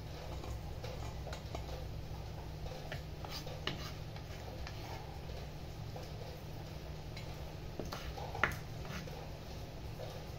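Scattered light clicks and taps of a kitchen knife and hands working over a stainless steel bowl and wooden cutting board, with one sharper knock about eight and a half seconds in, over a steady low hum.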